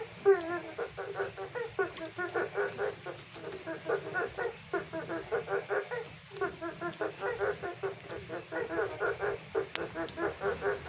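Frogs croaking in a rapid, rhythmic series of short calls, several a second, with a few brief pauses. A few faint clicks from dripping water from a leak sound here and there.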